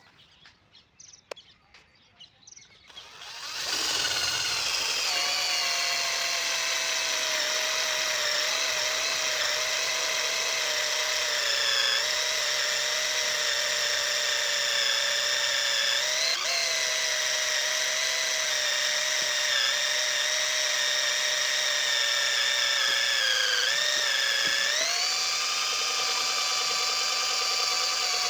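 Small electric drill drilling into wood: a steady high whine that starts about three and a half seconds in, after a few faint clicks. Its pitch sags briefly about 24 seconds in, then rises back.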